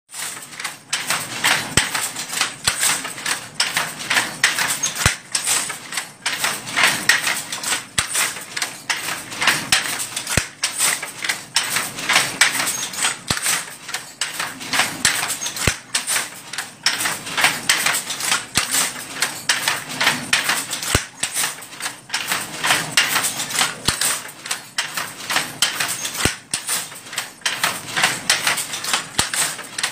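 Wooden handloom clattering as it is worked by hand: a rapid, uneven run of knocks and clacks from the batten and shuttle.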